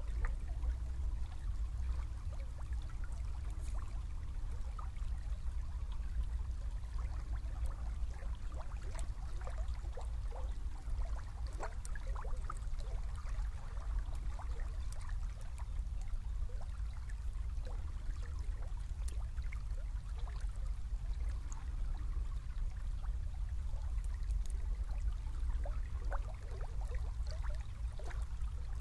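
Small river flowing past the bank, with irregular little gurgles and trickles over a steady low rumble.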